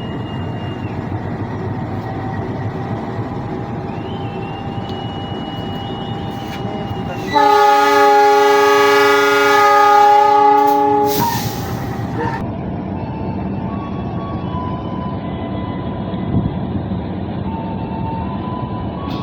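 Diesel locomotive horn giving one long blast of nearly four seconds, starting about seven seconds in, over the steady rumble of the locomotive. The blast is semboyan 35, the driver's horn signal on Indonesian railways.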